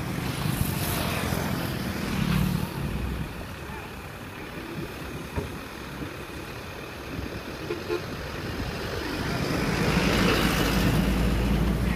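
Kubota M6040SU tractor's diesel engine running, easing off for a few seconds in the middle and picking up again from about nine seconds in.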